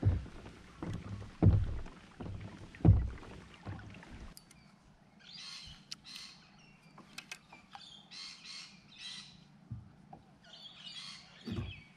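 Birds chirping in short separate calls, starting about four seconds in, with scattered small clicks. In the first three seconds a few dull low thumps are the loudest sounds.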